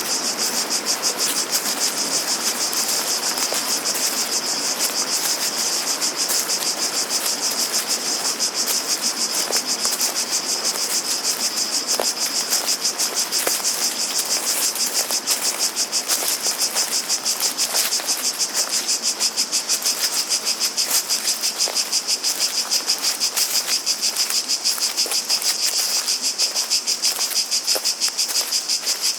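Cicadas singing in a steady chorus, a high, rapidly pulsing buzz.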